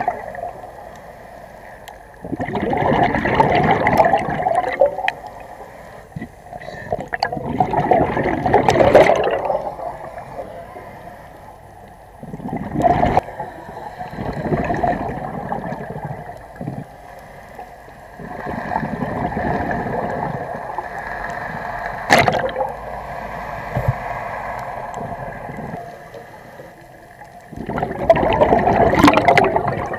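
A scuba diver's regulator exhaust bubbles gurgling, heard underwater, in bursts a few seconds long roughly every five to six seconds, one for each exhalation, with quieter gaps between as the diver breathes in.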